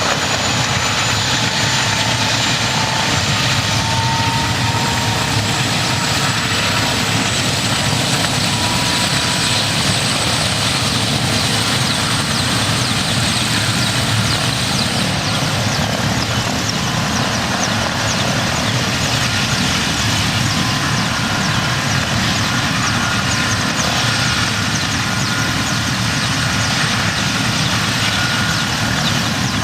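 Military helicopter running loud and steady, its rotor and turbine noise filling the whole range, with a faint high whine over it.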